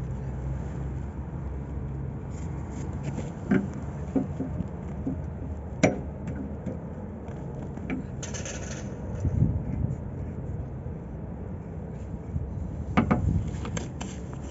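Scattered clicks and knocks of hand work on a hydraulic cylinder being refitted, with a short scrape about eight seconds in and a cluster of sharper knocks near the end.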